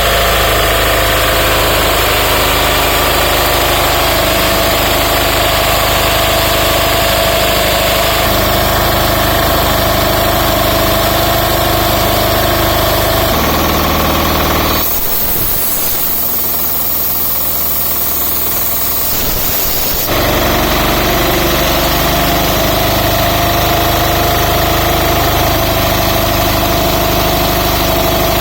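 Diesel-driven air compressor running steadily with a loud, knocking diesel clatter. For about five seconds past the middle the low running sound drops away and a high hiss takes over, then the steady running returns.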